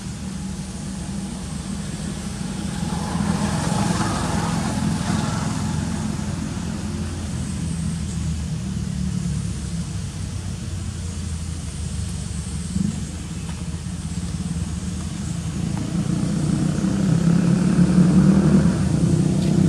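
A motor vehicle engine running steadily, growing louder in the last few seconds.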